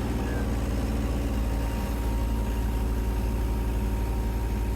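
Small diesel engine of a mini excavator running steadily while the boom is slowly swung over. A faint steady whine joins in about a second in.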